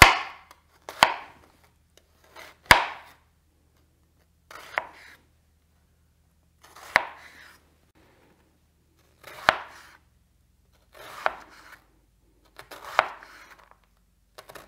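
Chef's knife cutting a red onion into dice on a cutting board: about eight slow, separate cuts, one every one to two and a half seconds. Each is a sharp knock on the board followed by a short rustle.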